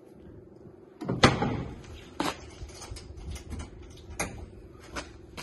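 Slide-out plywood cargo tray in a pickup bed: the lid of its hidden storage compartment shuts with a sharp knock about a second in, followed by several smaller clicks and knocks as the tray's handle and latch are worked.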